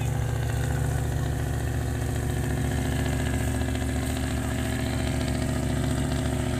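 Boat engine running steadily at an even speed, a low drone with no change in pitch.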